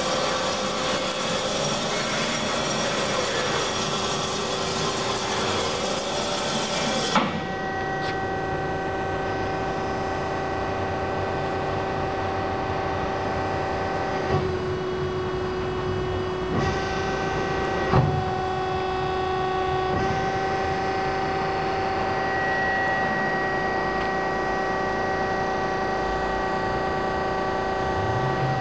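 Hyd-Mech S23-A automatic horizontal bandsaw running under power: a steady machine hum with several whining tones. A high hiss cuts off with a click about seven seconds in. Later a few clicks and small shifts in the whine come as the controls are worked.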